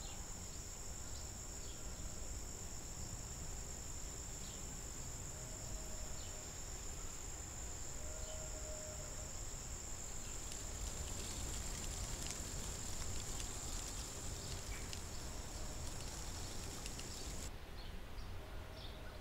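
Insect chorus, a steady high-pitched ringing, over a low wind-like rumble; the insects cut off suddenly a couple of seconds before the end.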